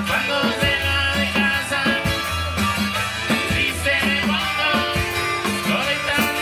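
Live band playing a Latin dance song with guitars, button accordion and a drum kit, keeping a steady beat over a repeating bass line.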